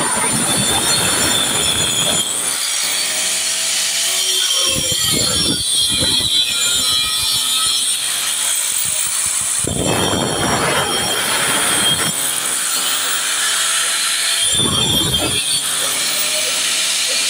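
Electric angle grinder cutting into concrete or masonry, raising thick dust, with a steady high whine. The sound grows heavier and fuller in surges about every five seconds as the disc bites into the material.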